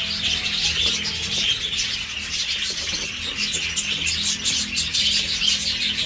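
Budgerigars chattering and warbling continuously, over background music.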